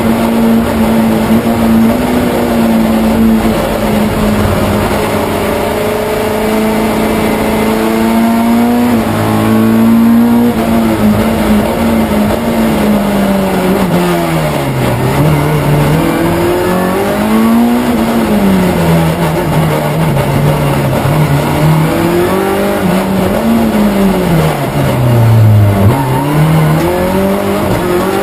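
A Ford Escort RS race car's 2.5-litre Millington Diamond Series four-cylinder engine, heard from inside the cabin. It holds high revs at speed, then drops in pitch through a series of downshifts under braking about nine to eleven seconds in. After that the engine note rises and falls again and again as the car accelerates and lifts through slow corners.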